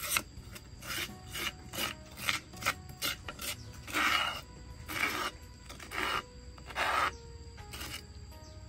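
A metal spoon scraping the inside of a clay mortar as thick pounded paste is scooped out. There are about fifteen separate scrapes, some short and a few lasting about half a second.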